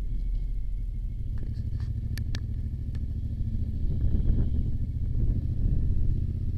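Motorcycle riding along, its engine and road noise a low steady rumble, with a few short sharp clicks about two seconds in.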